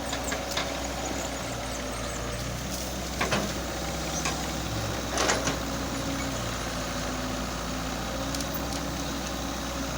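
Engine of a crane loading soil into a tractor trolley, running steadily, with a few short knocks of the work about a third and half way through.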